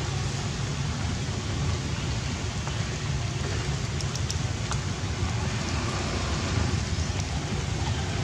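Heavy rain falling steadily on water and rock: a continuous, even hiss with a deep rumble underneath.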